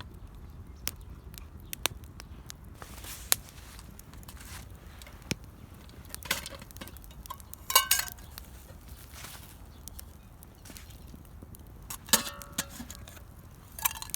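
Camp cookware being handled: scattered taps and knocks, with two louder ringing metal clinks, about eight and twelve seconds in.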